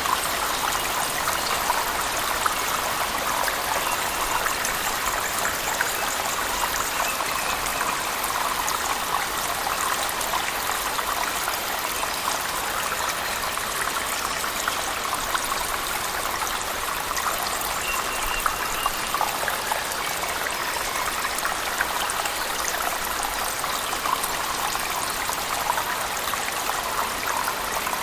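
Cave waterfall mixed with heavy rain: a steady rush of falling water, flecked with countless small splashes and drops.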